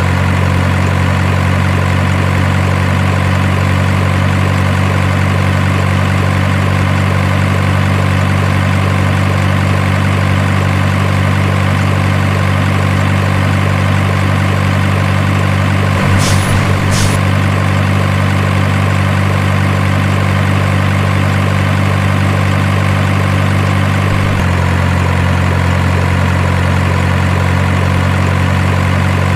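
Heavy truck engine idling sound, very steady and even, with two short sharp clicks about a second apart near the middle and a slight drop in the hum about three quarters of the way through.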